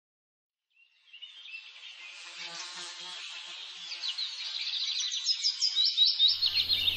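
Outdoor insects chirping, with some bird chirps, fading in about a second in and growing louder.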